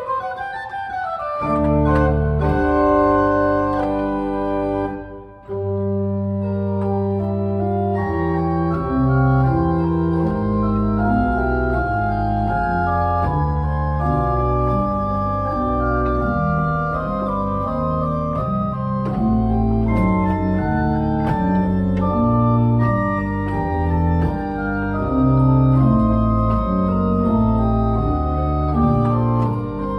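Church pipe organ playing held chords over a moving bass line, with a short break about five seconds in.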